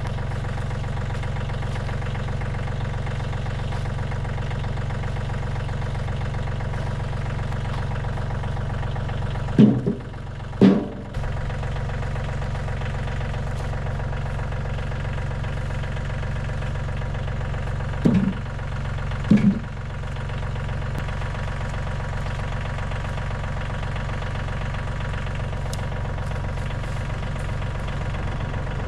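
A heavy-equipment diesel engine running steadily, with four short louder bursts in two pairs, about ten and nineteen seconds in.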